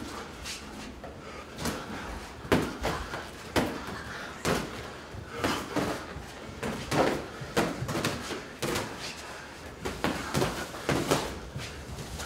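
Boxing gloves smacking on gloves, arms and body as two heavyweights trade punches in light-contact sparring: sharp smacks at irregular intervals, roughly one a second.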